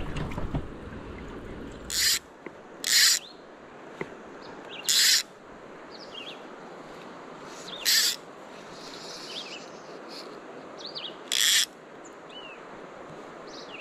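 Five short, harsh hissing bursts, each under half a second and a couple of seconds apart, with small birds chirping faintly between them.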